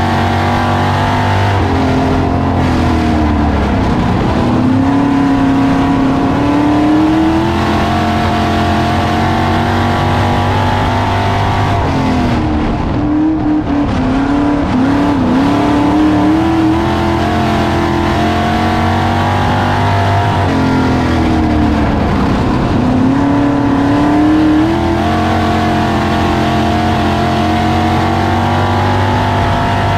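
Dirt-track Classics race car's engine heard from inside the car at racing speed. The engine note is held high, then drops and climbs back three times as the driver lifts off for the turns and gets back on the throttle.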